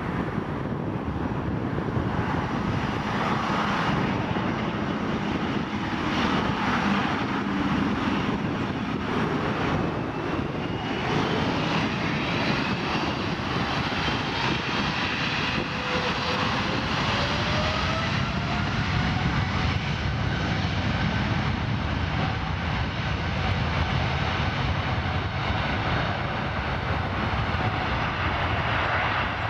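Jet engine noise from a Boeing 777-300ER's two GE90-115B turbofans, running steadily as the airliner taxis and lines up. Partway through, a whine rises in pitch as the engines spool up for the takeoff roll.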